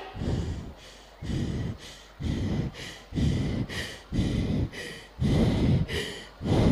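A man breathing heavily in loud, rhythmic breaths, about one a second.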